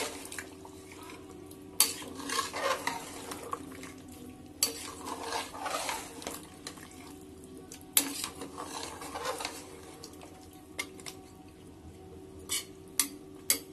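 A metal spoon stirring a thick mutton and round-gourd (tinde) curry in an aluminium pressure cooker, scraping and knocking against the pot. Sharp clinks come about two, five and eight seconds in, and a few lighter taps near the end.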